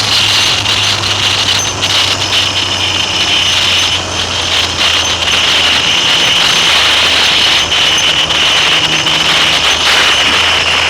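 Triumph Trident three-cylinder motorcycle engine running under way, its low note shifting a few times with the throttle. Heavy wind rush on the low-mounted helmet or bike camera microphone is the loudest part.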